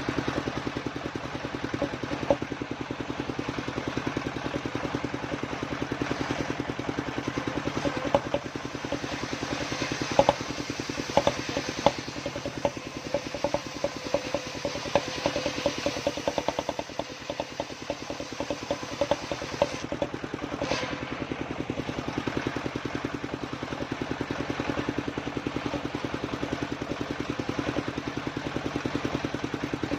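Engine driving a homemade circular saw, running steadily, with a string of sharp knocks and clacks through the middle stretch.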